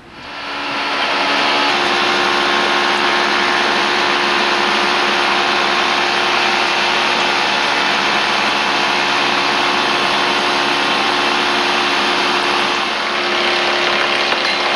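Woodworking molding machine, fitted with a rip-saw blade in place of its molding head, running steadily with a constant whine; it comes up to full level over about the first second.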